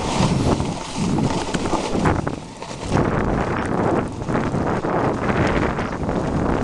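Snowboard edge scraping and sliding over packed snow during a downhill run, rising and falling in swells about a second apart as the turns bite and release.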